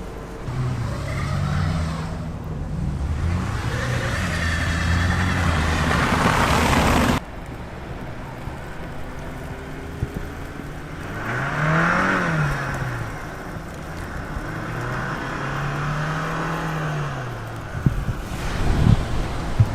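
Road traffic: cars driving past on a snowy street, engine hum under tyre hiss that swells and fades with each pass. The sound drops off abruptly about seven seconds in.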